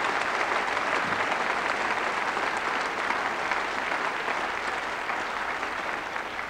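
Studio audience applauding, many hands clapping together in a steady patter that eases off a little toward the end.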